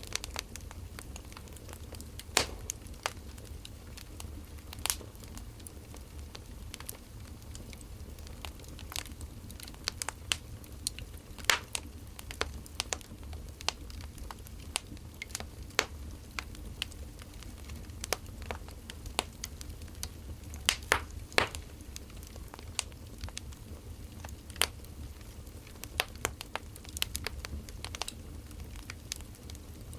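Wood fire crackling: irregular sharp pops and snaps over a low, steady rumble.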